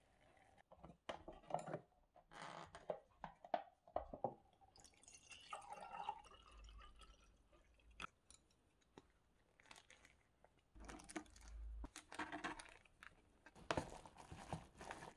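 Quiet kitchen handling sounds of making cup noodles: hot water poured into a paper ramen cup, noodle packaging and sauce packets crinkling, and chopsticks stirring noodles in a paper cup. It comes as a string of short rustles and clicks with a few longer stretches of hiss.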